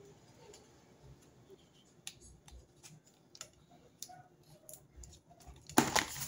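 Light scattered clicks and taps of a hot glue gun and cardboard pieces being handled, then one louder brief scrape of cardboard near the end as the glued pieces are pressed together.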